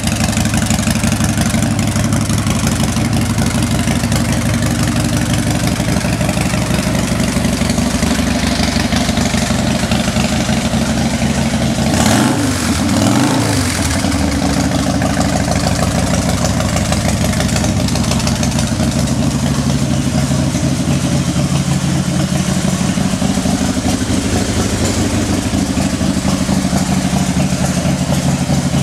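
Harley-Davidson Dyna Super Glide's V-twin engine idling steadily with a regular pulse. About twelve seconds in, the throttle is blipped once and the revs rise and fall back to idle.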